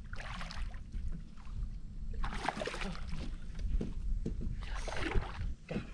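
Water splashing in three bursts as a hooked largemouth bass thrashes at the surface beside the boat hull, over a steady low rumble.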